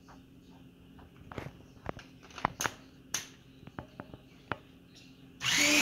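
A few light clicks and knocks, then near the end an electric mixer switches on suddenly and runs loudly with a steady whirring noise.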